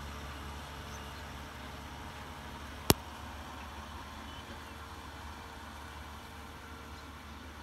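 Kubota M6040SU tractor's four-cylinder diesel engine running steadily under load as a low, distant drone. A single sharp click about three seconds in.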